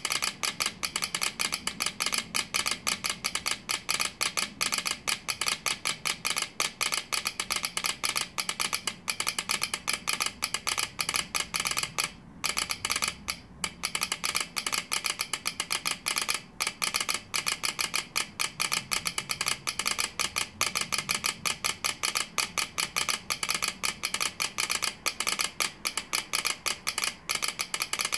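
Telegraph key and sounder clicking fast as a train-delay telegram is sent by hand in Morse code. The stream of clicks runs on steadily, with a few brief pauses around the middle.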